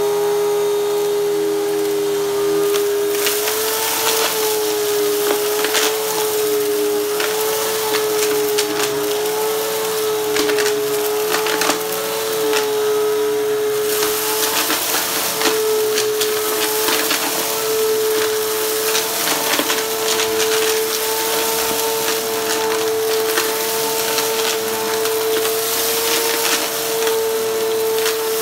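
Upright vacuum cleaner running with a steady motor whine while sucking up sequins, glitter and beads from a shag rug, the debris clicking and rattling up through the machine.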